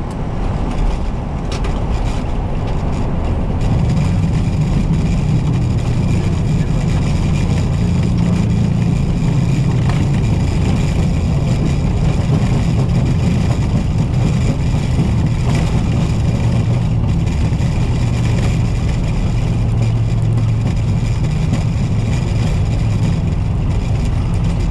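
Airbus A320 on its landing rollout heard from the cockpit: a steady roar of engines and wheels rumbling on the runway, growing louder about four seconds in.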